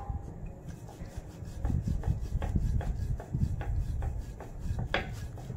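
Wooden rolling pin rolling out roti dough on a round wooden board: rhythmic rubbing strokes about two to three a second, with one louder wooden knock near the end.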